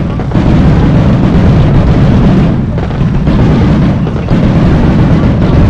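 Fireworks going off in a dense, continuous barrage of bursts, very loud, with only brief lulls.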